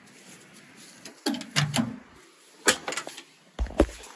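A handful of separate mechanical clunks and knocks from handling the truck, the loudest a heavy, deep thump near the end.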